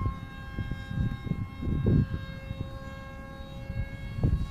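Motor of a radio-controlled model F-22 Raptor jet whining at a steady pitch in flight, with irregular gusts of wind rumbling on the microphone, loudest about two seconds in and again near the end.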